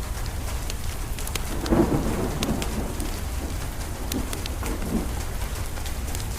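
Wood fire crackling with scattered sharp pops over steady rain, with a low rumble of thunder swelling about two seconds in.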